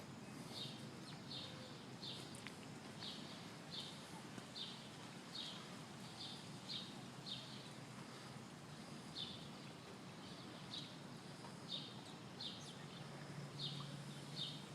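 A bird chirping over and over in short high notes, roughly one and a half a second, with a brief pause about halfway through, over a faint low background noise.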